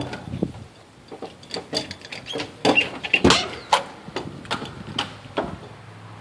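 A key working the deadbolt of an exterior door: a string of sharp metallic clicks and knocks. Then the door is opened near the end.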